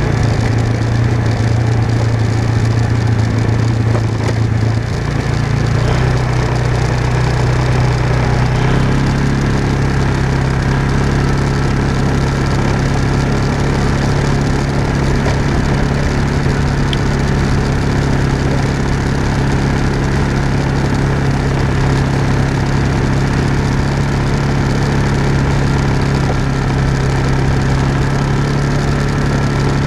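Off-road vehicle engine running steadily while driving on a gravel road, with tyres crunching over the gravel. The engine's pitch rises a step about five seconds in and again near nine seconds.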